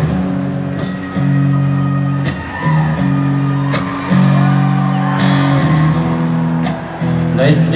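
Live rock band playing an instrumental passage: electric guitar chords ringing over bass, with a sharp drum hit about every second and a half. It is heard from the audience in a large open-air amphitheatre.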